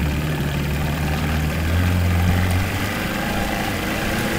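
Motorboat engine running steadily while towing a tube, a low hum that eases a little about two-thirds of the way through.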